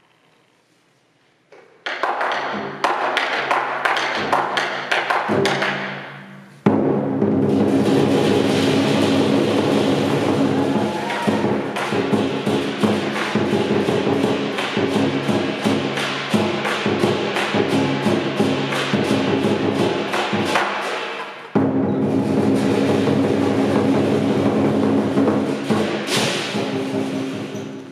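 Lion dance percussion: a large Chinese drum beaten with clashing hand cymbals in a fast, dense rhythm. It starts about two seconds in, with a short break around six seconds and another about two-thirds of the way through.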